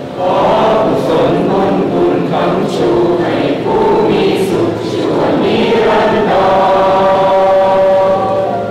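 A large group of voices singing together in unison, with long held notes and the hiss of sung consonants now and then.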